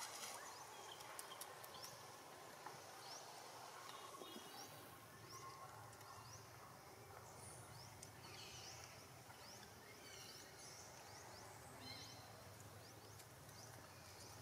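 Near silence: faint forest ambience with scattered short high chirps and a few soft clicks.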